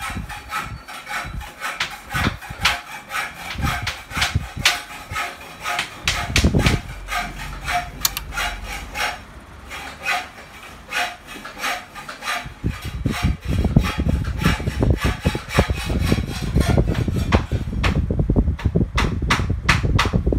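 KDK W40Y 16-inch electric fan running, with a repeated irregular clicking rattle, several clicks a second. Air from the blades buffets the microphone as a low rumble from about six seconds in, heavier in the second half.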